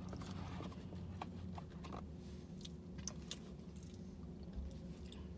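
Crispy Jollibee fried chicken skin being bitten and chewed close to the microphone, a scatter of short, sharp crunches, over a steady low hum.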